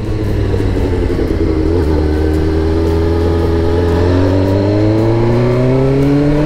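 2004 Suzuki GSX-R600's inline-four engine running under way, its revs climbing steadily for several seconds and then dropping suddenly at the very end.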